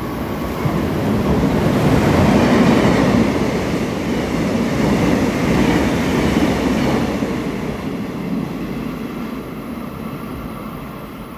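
Mugunghwa passenger train passing through a station without stopping, its wheels rumbling on the rails. The sound builds to its loudest about two to three seconds in, swells again as the coaches roll by, then fades as the train pulls away.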